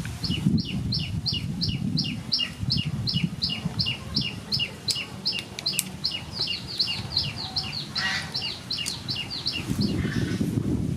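A bird calling in a quick, even series of short high chirps, each dropping in pitch, about three a second, that stops shortly before the end. A low rumbling noise runs underneath.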